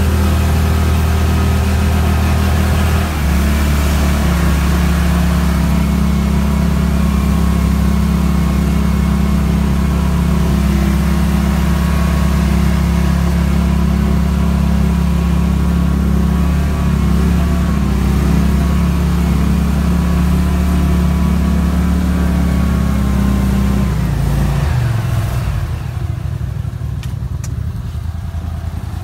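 Pro-Drive 36 hp surface-drive mud motor pushing a flat-bottom boat, running steadily at high throttle. Near the end it throttles down and its pitch drops.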